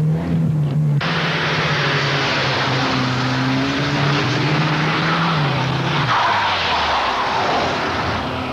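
Car engine running hard with tyres squealing and skidding. About six seconds in, the engine note drops away.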